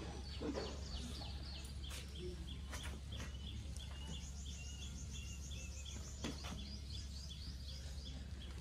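A bird chirping over and over, about three short calls a second, over a steady low hum. A few sharp metallic clicks come from a wrench working the old bicycle's handlebar stem.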